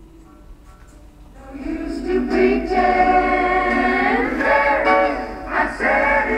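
A song with several singing voices in harmony played from a vinyl record on a Loop Tone 3 portable record player, coming in about a second and a half in after a quiet lead-in.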